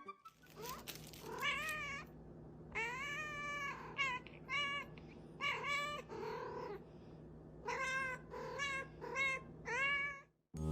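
A cat meowing over and over: about a dozen short calls, each rising then falling in pitch.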